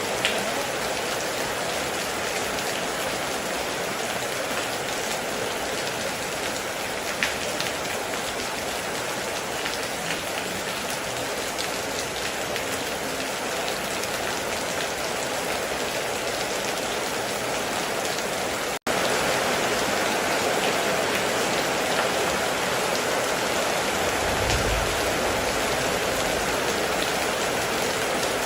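Heavy rain falling steadily, a dense even hiss of drops. About two-thirds through it cuts out for an instant and resumes slightly louder, and near the end a brief low rumble sits under the rain.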